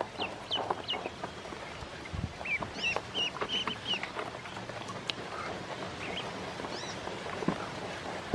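A group of ducklings peeping in short, high calls, thickest in the first half and only a few later on. A few light clicks come from beaks pecking and dabbling at feed in the shallow plastic tub of water.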